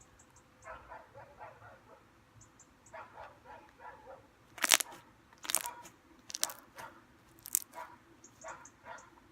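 Glittery glue-and-shaving-foam slime being squeezed and poked by hand, giving soft sticky crackles and several sharp snapping pops, the loudest about halfway through.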